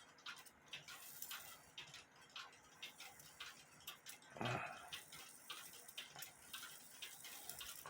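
Small metallic ticks and clicks from a Henry Coehler (Heco) one-day cuckoo clock movement as it runs and is tripped by hand, with a short low vocal sound about halfway through.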